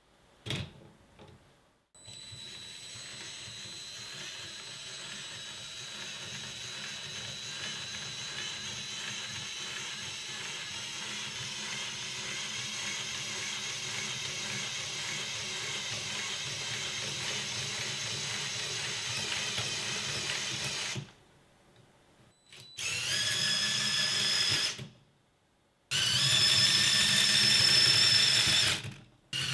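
Small LEGO electric train motor whirring and whining steadily as it drives the locomotive's three coupled pairs of wheels up a steep LEGO track, growing slowly louder as it climbs. A short click is heard near the start, and after the motor stops the whine comes back twice more, shorter, louder and higher-pitched.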